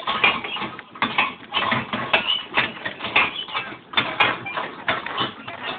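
Horses walking, with irregular hoof falls and knocks and rustling of tack and handling on a shaking camera.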